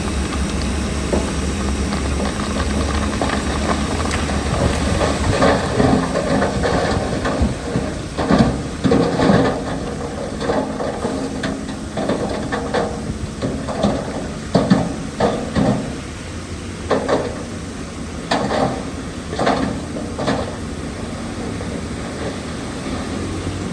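Heavy earthmoving machinery running with a steady low engine rumble. From about five seconds in, irregular clanks and knocks come roughly once a second, then thin out near the end.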